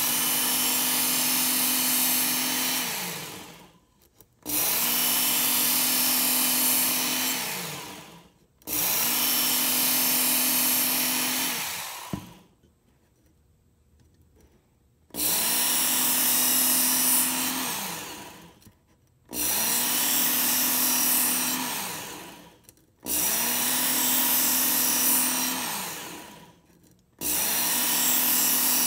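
Work Sharp Ken Onion Edition electric belt sharpener run in repeated passes of about three seconds each, its extra coarse abrasive belt grinding along a D2 steel knife blade drawn through the angle guide. The motor's hum drops in pitch and fades between passes, and there is a longer pause about halfway through.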